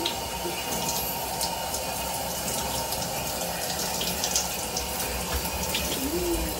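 Shower running steadily, its spray hitting a person's body and the tiled stall, with scattered splashes.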